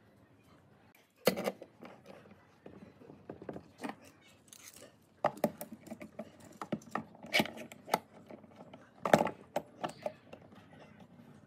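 Metal bar clamps being set on a wooden frame and tightened: irregular metallic clinks and clicks with wooden knocks, the sharpest about a second in and again about nine seconds in.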